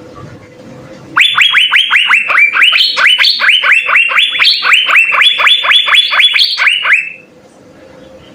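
Asian fairy-bluebird (cucak biru) singing a rapid, loud series of sharp whistled notes, each falling in pitch, about four a second. The run starts about a second in and stops abruptly near the end, with a few higher notes mixed in.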